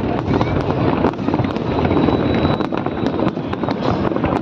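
Fireworks display going off continuously: a dense rumble of booms with many sharp cracks scattered through it.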